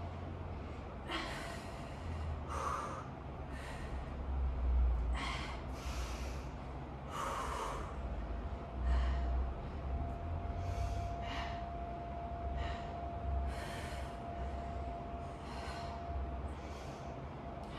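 A person breathing hard during a strength-and-cardio workout: short exhales about every second or so, over a low rumble with a few low thuds.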